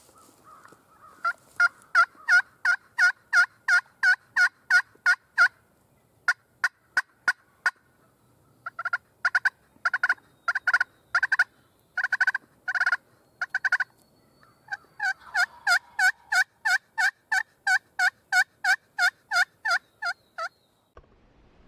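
Turkey yelping: four long series of evenly spaced yelps, about three a second, each note breaking from high to low, with short pauses between the series.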